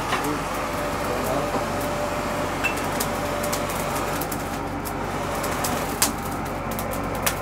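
A hair dryer blowing steadily onto glowing charcoal in a brazier to fan the fire under a künefe pan. Sporadic crackles and pops come from the embers.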